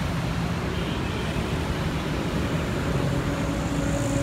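Oshima 2P earth auger's two-stroke engine idling steadily; without throttle the auger bit is not turning.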